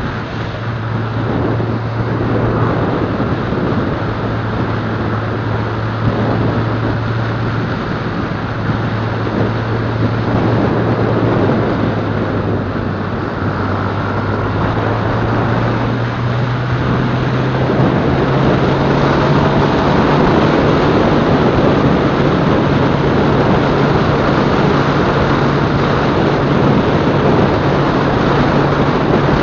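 Motorcycle engine running steadily at cruising speed, heard from the riding bike, under a heavy rush of wind and road noise. The engine note rises a little about two-thirds of the way through and then holds.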